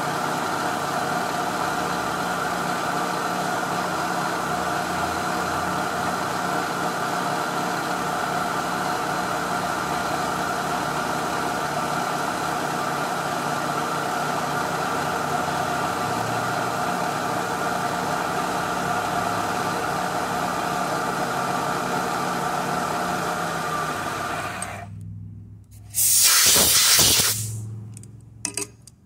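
Milling machine running under cut, with an end mill side-milling a workpiece held in a vise: a steady multi-pitched whine. The spindle winds down about 24 seconds in. About two seconds later comes a loud hiss of compressed air, lasting about a second and a half, blowing the chips out of the vise.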